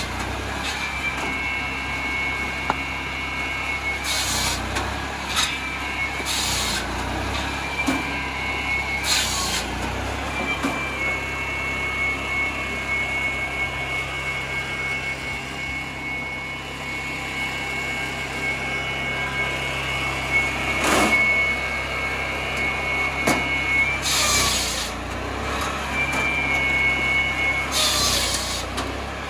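Hartnett 13 HP petrol log saw running steadily, its 700 mm circular blade giving a high whine. The blade cuts through logs several times, each cut a short, loud burst of noise, with the whine dipping under load.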